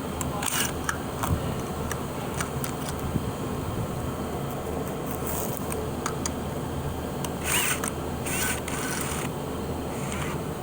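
Scattered clicks and short rustling bursts of handling noise, over a steady low hum.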